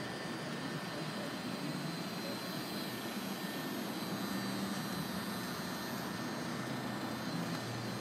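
Steady outdoor background noise: an even hiss and rumble with no distinct events.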